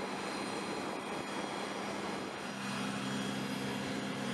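Aircraft turbine engines running steadily, a constant hiss with a thin high whine, and a low steady hum joining about two seconds in.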